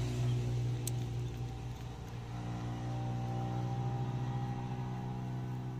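An engine running steadily with an even low hum; a short click about a second in.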